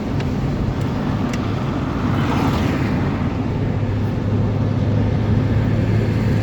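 Engine of road-works machinery running steadily with a low hum. About two to three seconds in, a rushing hiss swells and fades.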